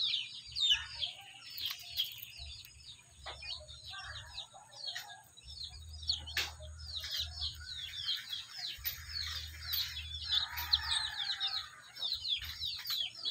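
A group of young native chickens peeping nonstop: rapid, high-pitched, falling chirps, several a second, with a few lower calls mixed in.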